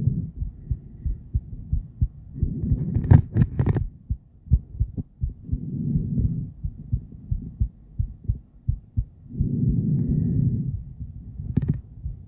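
A woman's heartbeat picked up by an ultrasonic heart monitor: a regular run of low thumps, with several swells of noise lasting over a second each. A few sharp clicks come about three seconds in and again near the end.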